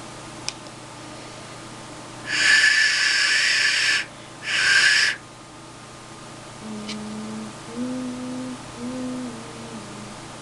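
Handmade clay duck whistle being test-blown while it is being voiced: two airy, breathy blasts with little clear pitch, then a few soft, low hooting notes that step up and down in pitch.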